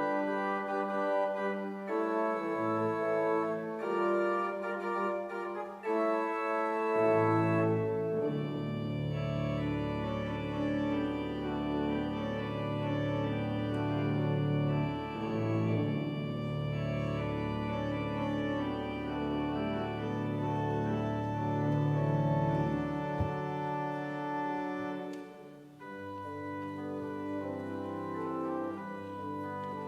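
Organ music: slow, sustained chords that change every couple of seconds, with deep bass notes joining about seven seconds in.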